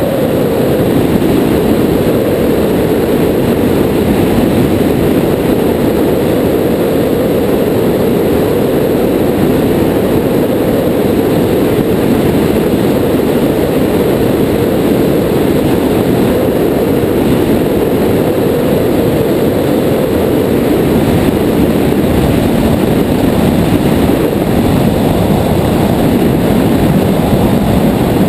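Piper J3 Cub's engine and propeller running steadily in flight, mixed with heavy wind rush over the outside camera's microphone.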